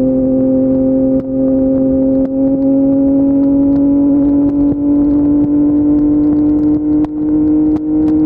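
Yamaha MT-09's inline-three engine through an Akrapovic full-system exhaust, running steadily on the move with its pitch rising slowly as it gently accelerates. There are a few brief dips in loudness.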